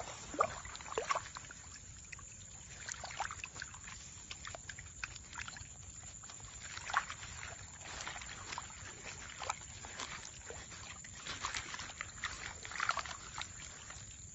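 Faint, irregular wet splashes and slaps from a wet fishing net at the water's edge, over a steady low background noise.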